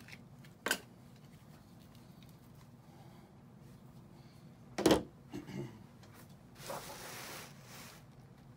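Handling noises: a click, a loud knock about five seconds in with a couple of softer knocks after it, then a brief rustling hiss lasting about a second.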